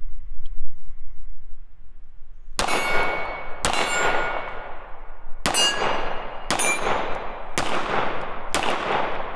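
Hi-Point C9 9mm pistol fired six times, about a second apart with one longer pause after the second shot. Each shot is followed by the ringing clang of a steel target being hit.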